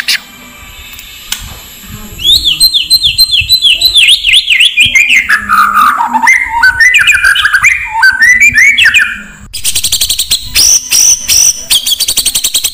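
Oriental magpie-robin (kacer) song from a lure recording. After a quiet first two seconds, a long run of rapid repeated whistled notes steps down from high to mid pitch. About nine and a half seconds in, it switches to fast, sharp, high chattering notes.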